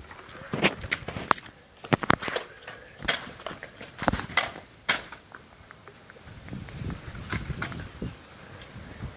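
Sharp plastic clicks and knocks from a Nerf blaster being worked, irregularly spaced and thickest in the first five seconds, followed by softer rustling.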